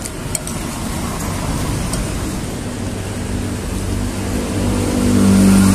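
Passing road traffic, a vehicle's engine hum drawing closer and growing louder toward the end. A metal spoon clicks lightly against a plate a few times early on.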